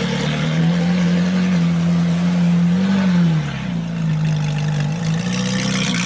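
Ferrari 458 Italia's V8 engine running at low revs, with a brief rise and fall in pitch about halfway through.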